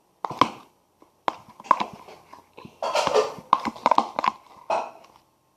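Homemade slime being kneaded and squeezed by hand, giving irregular short sticky squelches and clicks as it firms up towards a play-dough consistency.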